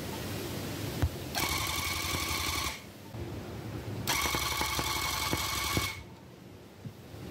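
Electric tufting gun punching yarn into tufting cloth in two bursts of about one and two seconds, a steady motor whine over a fast mechanical rattle. It is filling in the yellow petals row by row.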